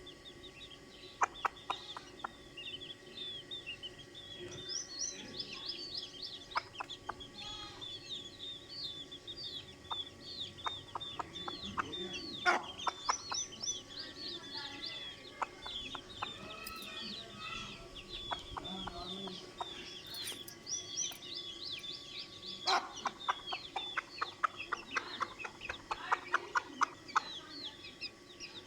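Baby chicks peeping constantly in high, short chirps, while a mother hen clucks in quick runs now and then, the longest run near the end.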